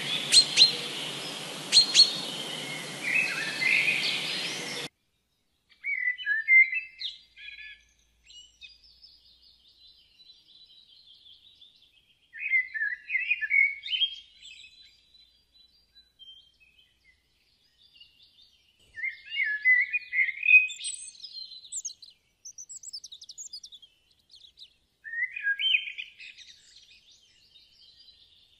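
Small birds chirping and singing in short bursts every few seconds. For the first five seconds they sing over a steady hiss that cuts off abruptly, with two sharp clicks.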